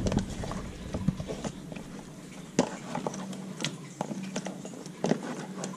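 Raw crappie fillets being handled and turned over in a clear plastic container of lemon juice: scattered soft taps and clicks of fingers and fish against the plastic tub.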